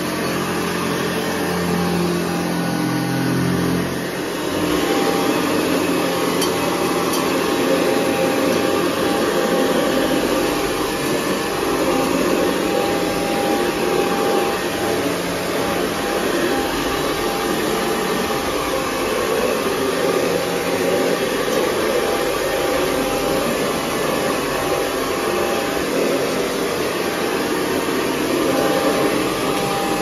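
Upright vacuum cleaner, the Columbus Dixon UZ806C, running with its brush head pushed back and forth over carpet: a steady motor whine with rushing air and the brush on the pile. About four seconds in the low hum drops away and the sound turns rougher.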